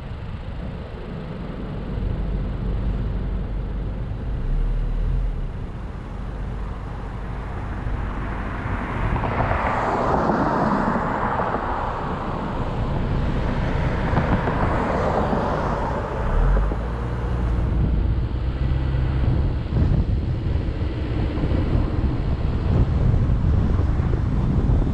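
Car driving along a street: steady low rumble of tyres and wind, with a swell of louder rushing noise for several seconds in the middle.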